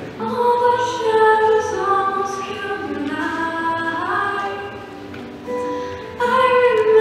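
A young woman singing a slow song with acoustic guitar, in long held notes, with a softer stretch between phrases and the voice coming back louder near the end. Picked up by the camera's built-in microphone from the audience.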